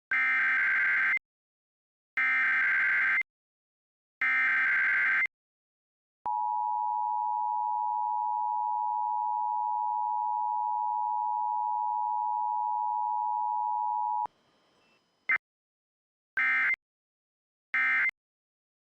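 Emergency Alert System alert tones: three one-second bursts of screechy SAME digital header data, then a steady single NOAA Weather Radio alarm tone (1050 Hz) held for about eight seconds. After a brief hiss and blip come two short end-of-message data bursts near the end.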